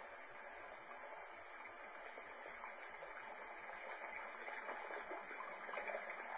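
Stream water running and splashing as Cavalier King Charles spaniels wade through it, heard through a television speaker. The splashing is a little louder near the end.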